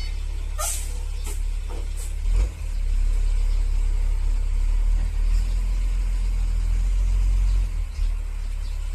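FAW J6P-350 dump truck's diesel engine running with a deep rumble, revving harder for about five seconds from around the third second as the truck maneuvers, then easing back. A few sharp clicks come in the first two and a half seconds.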